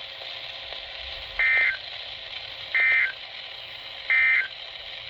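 Three short bursts of NOAA Weather Radio SAME/EAS digital data, each a buzzy warble about a third of a second long, spaced about 1.4 s apart, over steady radio hiss. They are the end-of-message code that closes the severe thunderstorm warning broadcast.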